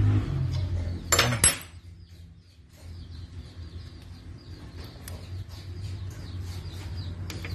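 A steady low mechanical hum stops about a second and a half in, just after a short loud hiss. Faint bird chirps and a low background hum follow.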